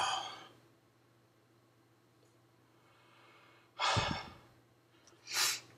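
A man sighing and breathing heavily in pain from the burn of a superhot chili pepper: a pained "oh" trails off at the start, a heavy breath out comes about four seconds in, and a short, sharp, hissing breath follows near the end.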